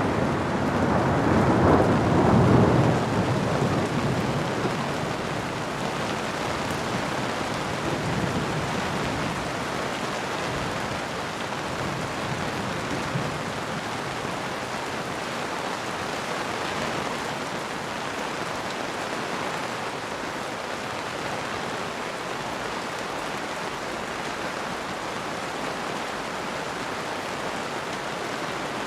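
Steady heavy rain falling, with a roll of thunder that swells in the first couple of seconds and rumbles away within about five seconds.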